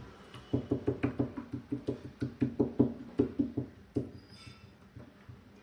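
A quick run of soft, low knocks, about four a second, stopping about four seconds in.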